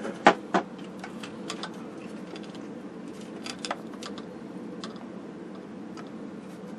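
Small metal clicks and ticks of screw hardware being handled and turned by hand on a sheet-metal television chassis bracket, with a few sharper clicks about half a second in and fainter scattered ticks after, over a steady low hum.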